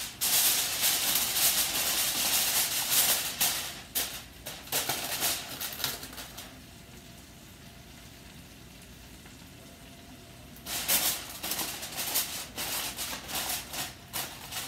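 Aluminum foil crinkling as it is pressed and tucked down over a cast iron skillet. The crinkling runs for the first several seconds, gives way to a quieter lull of about four seconds, and starts again near the end.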